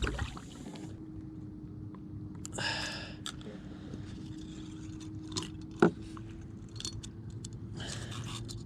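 Metal hook-out pliers and the treble hooks of a musky lure clicking and jangling as the hooks are worked out of a bass's mouth, with a faint steady hum underneath.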